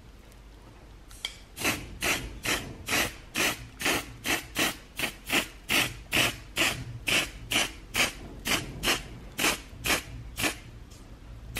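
Aerosol spray-paint can hissing in short, quick bursts, about two or three a second, as green paint is dusted onto a metal bracket. It starts about a second in and stops near the end.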